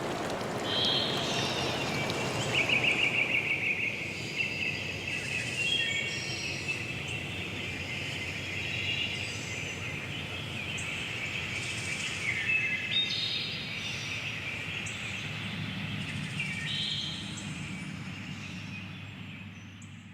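Several songbirds singing and chirping over one another in a forest, with running water for the first few seconds before it fades out.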